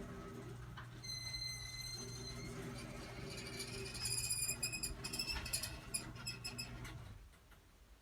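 Old Chamberlain half-horsepower chain-drive garage door opener running steadily as it closes the door, with high-pitched squeaks from the door from about a second in. The motor hum cuts off about seven seconds in as the door finishes closing.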